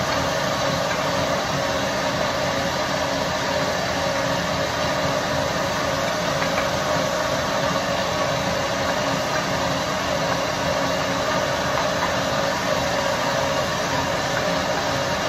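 Countertop blender motor running steadily, blending mango with sugar and water: a constant whir that holds one pitch throughout.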